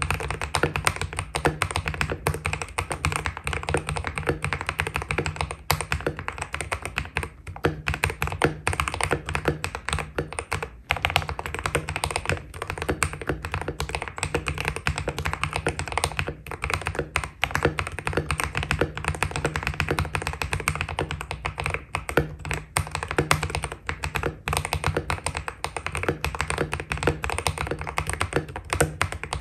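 Steady fast typing on a Keydous NJ80 mechanical keyboard with a steel plate, KTT Red Wine linear switches lubed with Krytox 205g0, 58g two-stage springs and PBT Cherry-profile keycaps: a dense, unbroken stream of keystrokes.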